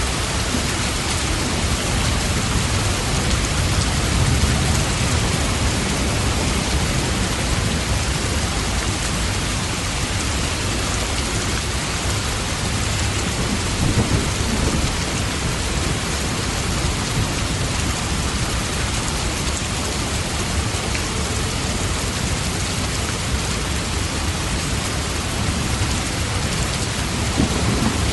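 Steady rain falling, with low rumbles of thunder swelling a few times: once about four seconds in, again around the middle, and near the end.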